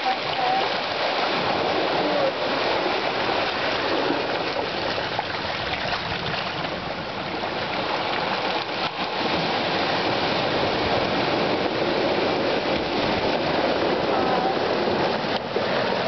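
Small Atlantic waves washing in and draining back over a beach of rounded cobble stones: a steady rushing and fizzing of surf.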